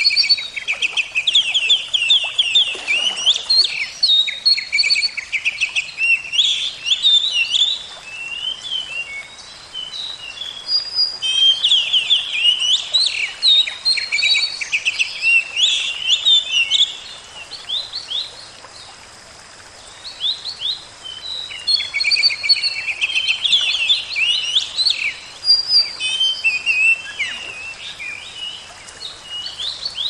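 Songbirds singing in a busy chorus of quick repeated chirps and trills, in bouts with two short lulls, over a faint steady rush of running water.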